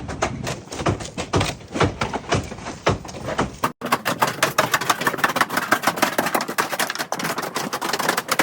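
Rapid clicking and knocking of hand work on a jobsite, a few knocks a second at first, then after a sudden break about four seconds in, a dense fast clatter.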